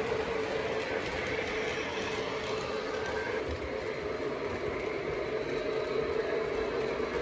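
O gauge model train running on three-rail track: a steady hum and rumble of motor and wheels, without a clear beat.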